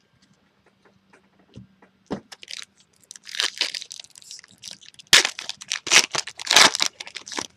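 Foil wrapper of a Topps Chrome trading-card pack being torn open and crinkled. The sharp crackling starts about two seconds in and is loudest in the last two and a half seconds.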